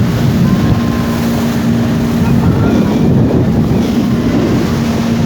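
A motorboat's engine running at a steady hum while under way, with wind buffeting the microphone and rushing water.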